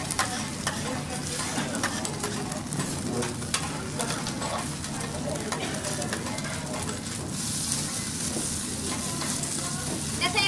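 Food sizzling on a teppanyaki steel griddle, with sharp clicks and scrapes of metal spatulas tapping and sliding on the hot plate. The sizzle's hiss grows louder about seven seconds in.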